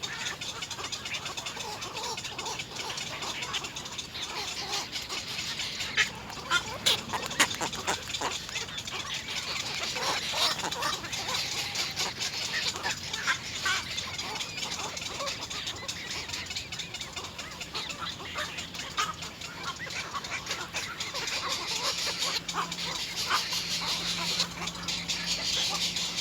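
Little egret nestlings begging for food: a continuous chatter of short, harsh calls, with a few louder calls about six to seven seconds in.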